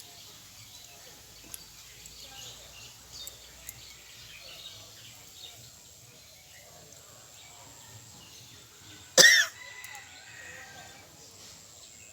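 A single loud, sudden sneeze about nine seconds in, over faint outdoor background noise.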